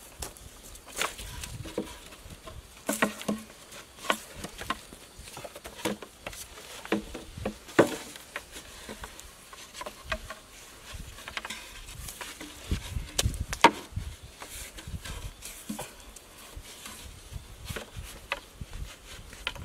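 Hollow bamboo poles knocking and clacking at irregular intervals as they are laid together and lashed with cord, mixed with small taps and rubs. One sharper knock comes about two-thirds of the way through.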